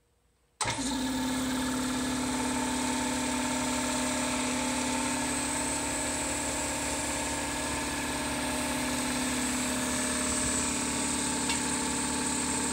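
Electric air compressor with a belt-driven cast-iron pump running steadily, together with a 12 V 80 W radiator fan blowing through the aftercooler core. The sound cuts in abruptly about half a second in.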